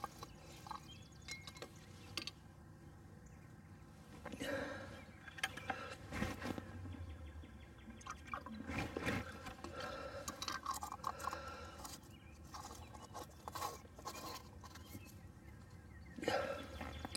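Beekeeping gear being handled at the hive: irregular knocks, clunks and rustling, with a few louder handling noises around four to six seconds in, around nine seconds and near the end, and some faint liquid sloshing or pouring.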